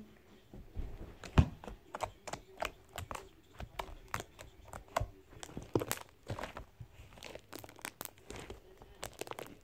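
A large, fluffy homemade slime being stretched and pulled by hand, giving off irregular small clicks and crackling pops throughout.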